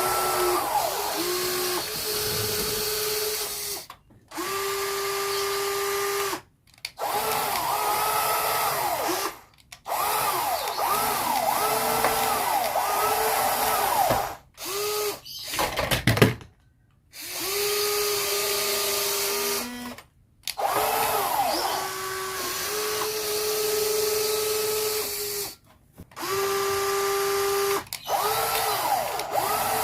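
Small electric motors of radio-controlled toy construction vehicles whining as they run, in stretches of a few seconds broken by brief silences, the pitch rising and falling as the motors speed up and slow down. A short louder clatter about halfway through.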